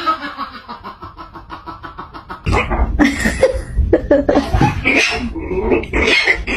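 A person laughing in quick pulses that slow and fade; then, from about two and a half seconds in, a small kitten gives a rapid run of short, loud mews and cries.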